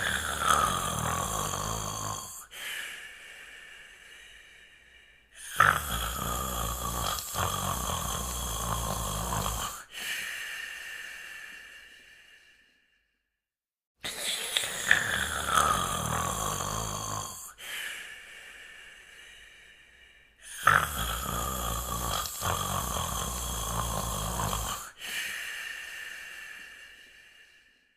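Heavy snoring in sleep: four long, loud snores, each trailing off into quieter breathing, with a brief silence about halfway through.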